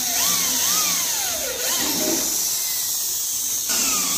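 Corded electric drill boring a screw hole through the side of a metal panel board box. Its motor whine keeps rising and falling in pitch as the bit bites and frees, drops away briefly about three seconds in, then runs up again near the end.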